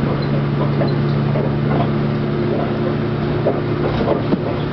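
Cabin noise aboard a Union Pearson Express diesel multiple-unit train accelerating at about 95 km/h: a steady low engine drone over rolling wheel-on-rail noise, with a few short clicks.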